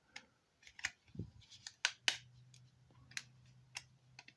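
Plastic parts of a wifi hotspot's casing clicking and snapping as they are pried apart by hand: about ten short, sharp clicks at uneven intervals, the loudest near the middle.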